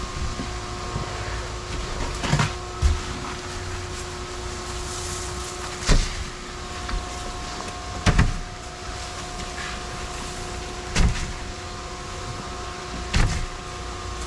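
Steady hum of running boat machinery with several even tones, broken by about six separate knocks and thumps of work on a fishing boat's metal deck and fish hold.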